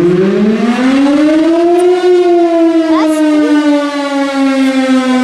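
Federal Signal STL-10 mechanical fire siren sounding a short alert. Its loud single-tone wail winds up in pitch for about two seconds, then slowly begins to wind down.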